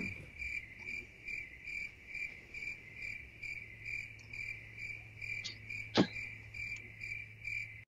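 Cricket chirping steadily at about two chirps a second over a low steady hum, with a single sharp click about six seconds in.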